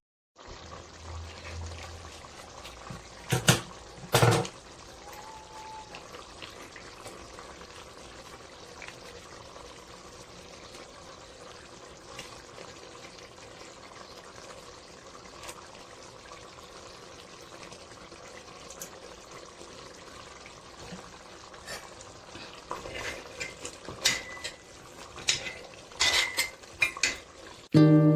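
Cooking sounds in a kitchen: a steady watery hiss of food on the stove, with two sharp knocks about three and four seconds in and a run of clatters near the end.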